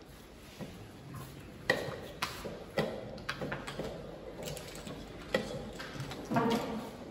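Draughts pieces clacking onto a board and game-clock buttons being pressed in quick blitz play: a string of sharp clicks and knocks at irregular intervals, with a short rattle of pieces near the end.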